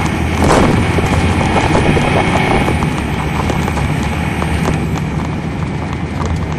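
Cabin sound of a 2003 MCI D4500 coach with its Detroit Diesel Series 60 inline-six diesel running steadily, with constant small rattles and clicks from the interior. A short loud burst of noise comes about half a second in.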